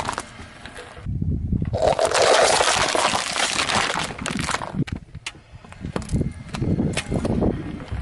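A car tyre rolling over and crushing objects: a long, loud burst of crunching and breaking over a low rumble, then a scatter of sharp cracks and pops as the debris gives way.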